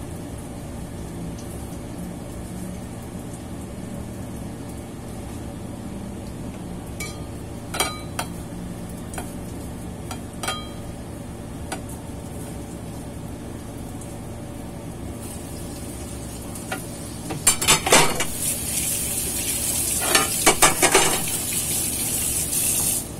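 Breading sweet potato cheese rolls by hand in stainless steel bowls: a few light metal clinks of the bowls over a steady hum. From about two-thirds through, hot frying oil sizzles loudly, with clusters of clattering knocks.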